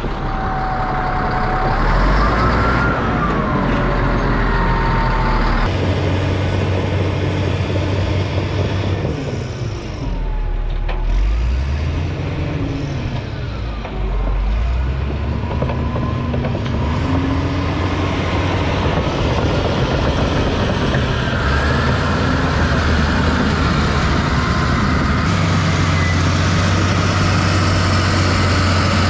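Cat D6H Series II bulldozer's diesel engine working under load while it pushes dirt, its low note stepping up and down several times as the load and speed change. A higher whine glides up and down over the engine.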